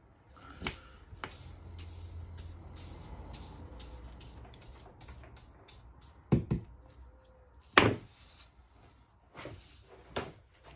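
Handling noises on a workbench: a low rubbing for a few seconds, then a string of knocks and clicks as a paintbrush and small tools are picked up and set down, the loudest about eight seconds in.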